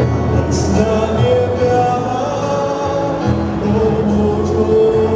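Music with singing: a held, slow-moving melody over steady low notes that change every few seconds.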